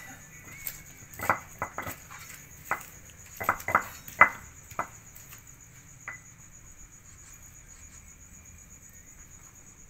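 Stone pestle knocking and grinding in a stone mortar, crushing garlic and chillies into a spice paste: a string of irregular sharp knocks that thin out after about six seconds. A steady high chirring trill runs underneath.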